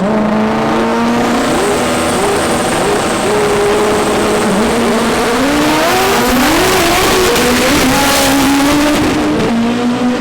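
Front-wheel-drive drag car accelerating hard down the strip, its engine revs climbing and dropping back at each of several upshifts.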